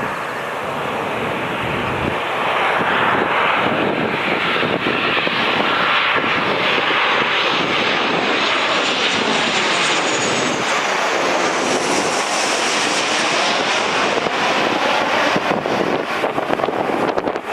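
Boeing 737-900ER jet airliner on its landing pass, its CFM56-7B turbofan engines making a loud, steady roar. A high whine slides down in pitch around the middle as the plane goes by, and wind buffets the microphone near the end.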